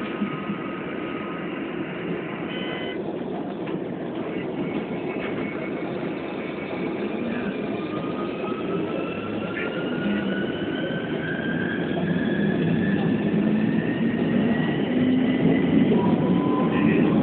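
Keikyu New 1000 series electric train pulling away and accelerating: the motors' whine climbs slowly in pitch and the running noise grows louder, with more rising tones joining near the end.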